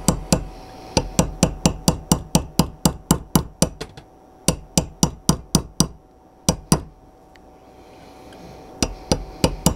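A small hammer tapping a pin punch in quick, even strokes, about four a second, driving the loaded chamber indicator's roll pin into a Springfield Armory XD-S 9mm pistol slide. The taps thin out past the middle, stop for about two seconds, and start again near the end.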